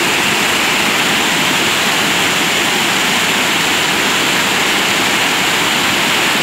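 Loud, steady rushing roar of rain-swollen river water pouring over a concrete spillway and churning in the pool below.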